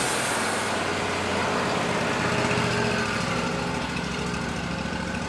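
Wood-Mizer LT40 band sawmill's engine running steadily, with a high hiss fading out in the first second.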